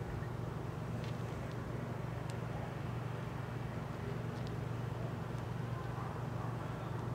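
Steady low hum of food-truck generators running, with a few faint ticks or crunches over it in the first half.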